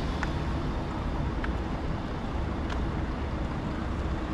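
Street traffic going by as a steady low rumble, with three faint short clicks about a second apart.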